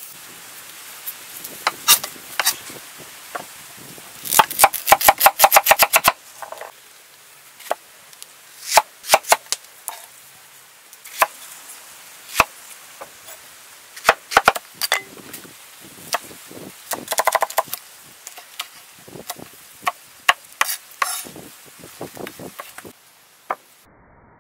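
A large knife chopping vegetables, its blade knocking on a wooden board: scattered single chops, with a fast run of about eight chops a second lasting about two seconds near the start and short clusters later.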